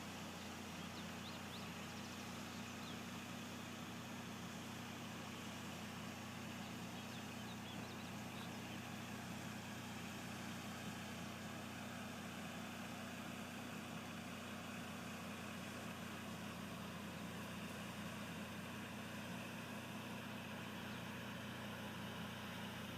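A steady, low mechanical hum with an even hiss over it, unchanging throughout.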